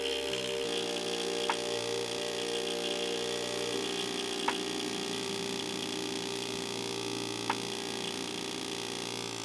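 Background music: sustained ambient chords with a short click every three seconds.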